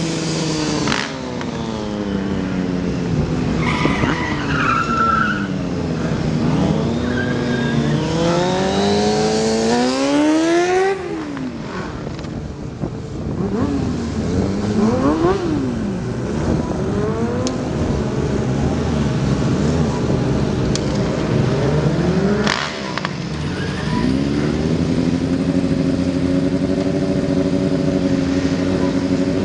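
Yamaha sport bike engine revving, its pitch rising and falling again and again as the throttle is worked to hold wheelies, then holding steady revs near the end.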